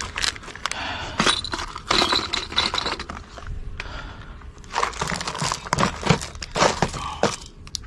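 Lure-fishing tackle being handled and sorted: small hard items and boxes clinking and clattering in irregular bursts, with a brief lull in the middle.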